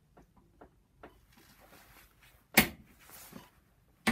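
Two sharp clunks about a second and a half apart, the first louder, with softer rustling before and between them: a click-type torque wrench clamped in a vise, clicking over under a weight hung from its handle during a calibration check.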